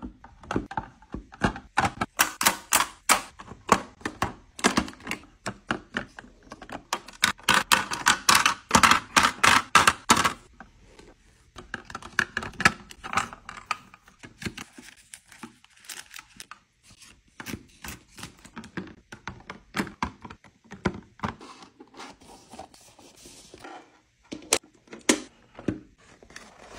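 Hard plastic clicks and clatter as clear plastic drawer organizer bins are set in place and handled, densest in the first ten seconds. After that come sparser taps, soft rustles of cotton swabs being dropped into a bin, and light knocks as jars are set down.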